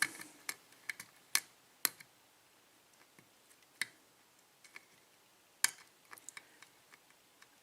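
Small, sharp clicks at irregular intervals from a steel lock pick working the pin stacks of a 6-pin Dorma lock cylinder under tension, as the security pins are set one by one.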